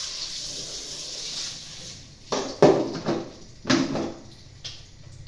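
Kitchen tap running into a sink, the water stopping about two seconds in. Then dishes and a plastic bowl clatter and knock several times as they are washed and handled.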